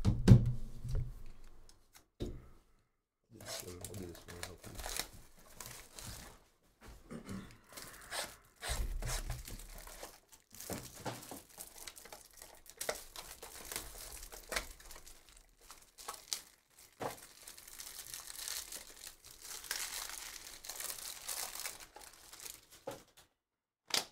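Plastic wrappers of Panini trading-card packs being torn open and crinkled by hand, in irregular scratchy bursts that grow denser and brighter past the middle. A single knock at the very start.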